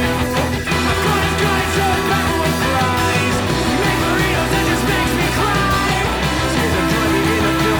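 Rock song with a male singing voice over a full band, playing steadily.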